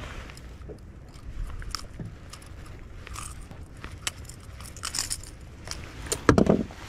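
Handling noise close to the microphone: a jacket sleeve rustles and crackles, with scattered short clicks, while a spotted bass is held up by the lip. One loud thump comes near the end.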